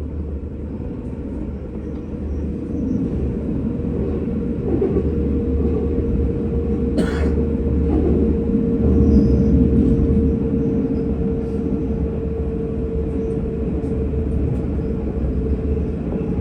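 Tram running on its rails: a steady low rumble with a steady motor hum, growing gradually louder, and a single sharp clack about seven seconds in.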